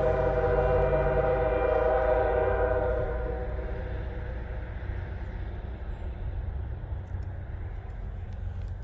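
Diesel freight locomotive's air horn sounding one chord that fades out about three seconds in, leaving the low, steady rumble of the approaching locomotive.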